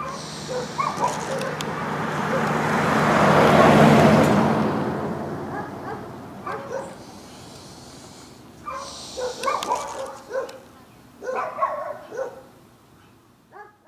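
A dog barking repeatedly, mostly in the second half, after a vehicle passes with a swell of noise that rises and falls about four seconds in.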